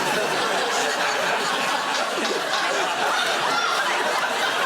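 Studio audience laughing, a steady wash of many people's laughter.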